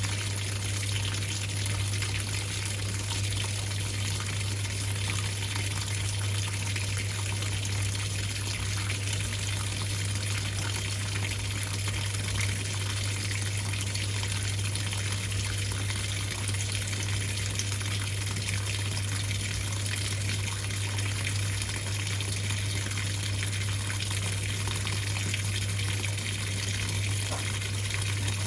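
Whirlpool top-loading washing machine with water gushing steadily through it and a constant low hum from the machine.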